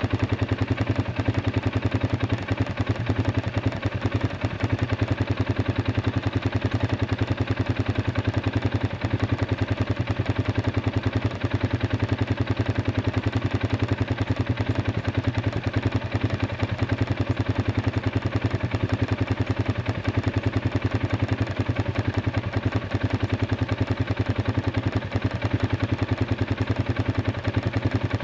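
Arctic Cat 500 ATV engine idling steadily, running again now that its dead battery has been dealt with.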